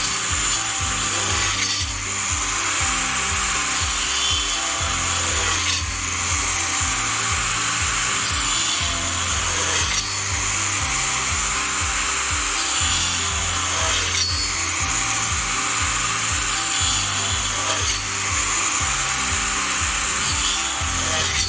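A 4-inch, 40-tooth tungsten-carbide-tipped saw blade on a power tool cutting through wood continuously, with a brief dip in the cutting noise about every four seconds.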